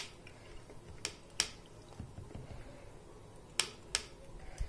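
Liquid dripping through a plastic funnel into a plastic bottle: about six sharp plinks at uneven intervals, against faint room tone.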